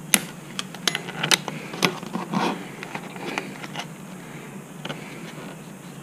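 Sharp clicks and snips of diagonal cutters cutting plastic zip ties that hold seat wiring, several in quick succession in the first two seconds, then rustling handling noise and a few more scattered clicks, over a steady low hum.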